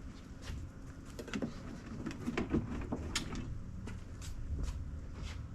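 Scattered light clicks and knocks, a dozen or so irregularly spaced, from hands and tools working on a pickup truck's door handle during installation.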